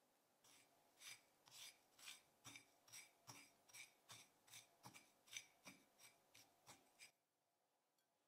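Faint spatula strokes scraping through ground cinnamon and sugar on a ceramic plate: a quick, even run of short scrapes, about two and a half a second, that stops about seven seconds in.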